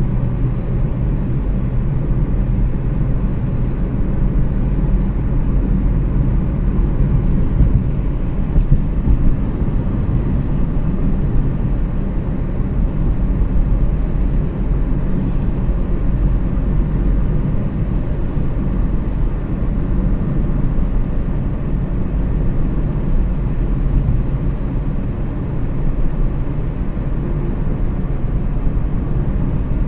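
Steady low rumble of vehicle engine and road noise.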